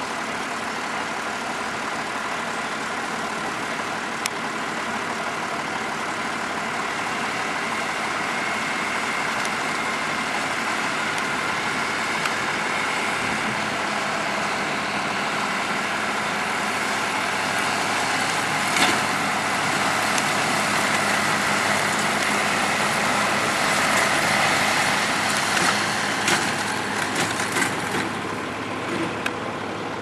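McCormick MTX150 tractor's diesel engine running steadily while it pulls an Orkel baler, growing a little louder toward the middle. A few sharp knocks come in the second half.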